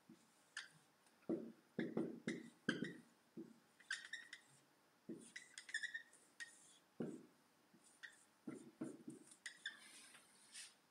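Dry-erase marker drawing on a whiteboard: a quick series of short strokes, faint, with soft scrapes and brief high squeaks.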